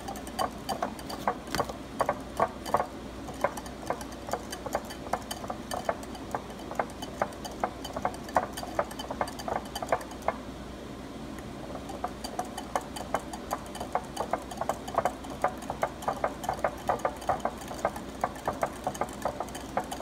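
Metal wire whisk beating instant pudding mix into milk in a glass bowl, its wires clicking rapidly against the glass, with a short lull about ten seconds in.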